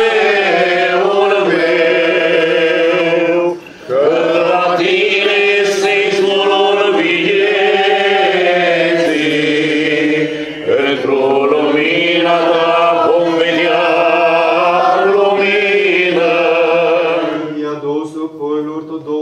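Romanian Orthodox liturgical chant, sung with long drawn-out notes. It breaks off briefly about three and a half seconds in and again near the tenth second, and thins out near the end.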